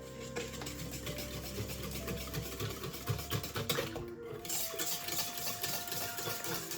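Electric kitchen mixer running, with quick clicks and knocks from the beaters against the bowl; the sound breaks off briefly about four seconds in and starts again. Soft background music plays underneath.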